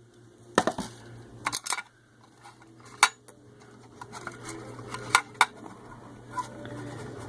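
Metal parts of a hard drive caddy clinking and clicking as it is taken apart by hand: scattered sharp clicks, a few at a time, over a faint steady low hum.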